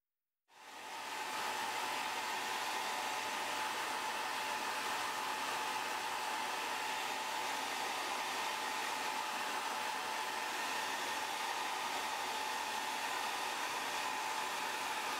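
A hot-air tool blowing steadily, with a faint steady whine in it; it starts about half a second in and builds up over a second. The steady blowing fits heating the adhesive to free the iPhone's old glass from the midframe.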